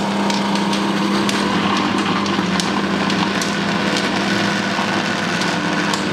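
Electric countertop blender running steadily at speed, its motor humming as it chops chunks of raw beef into meatball paste, with scattered sharp ticks of meat striking the blades and jar.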